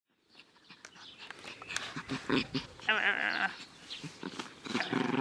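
Chihuahua vocalizing in play: low growls, with a wavering high whine about three seconds in, over scattered rustles as it nudges a blanket. The sound fades in from silence at the start.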